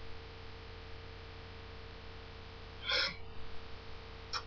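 Steady mains hum with a faint steady tone above it. About three seconds in comes a short breath-like noise, and shortly before the end a light click.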